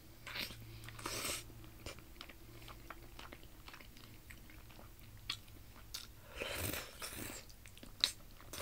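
Close-miked eating sounds of a person biting and chewing a chicken drumstick in peanut soup: many small wet mouth clicks and smacks, with a few longer noisy breaths or slurps, the longest about six and a half seconds in.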